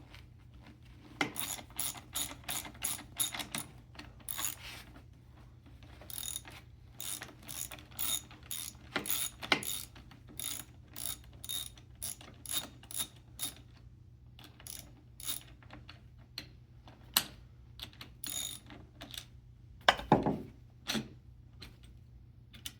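Socket ratchet wrench clicking in quick runs as the 13 mm nut holding the caster fork is loosened and spun off, with pauses between runs. A few louder knocks come about twenty seconds in.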